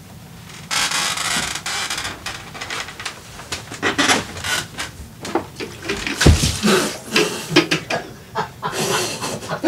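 Water splashing, and a wooden chair tipping over with a man onto a tile floor: scattered knocks, clatter and scuffling, with a heavy thud about six seconds in.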